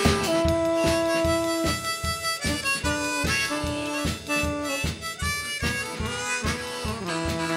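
Blues band playing: a harmonica holds long notes over strummed acoustic guitar and a drum kit keeping a steady beat, with a saxophone in the band.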